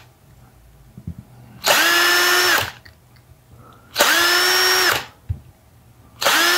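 Power drill with a 2.6 mm bit drilling out the holes in a 3D-printed ABS part: three short runs of about a second each, about two, four and six seconds in. In each the motor whine spins up, holds steady and winds down, with quiet gaps between.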